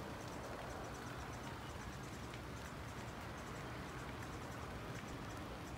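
Steady rain falling outdoors: an even hiss with many small scattered ticks of drops landing.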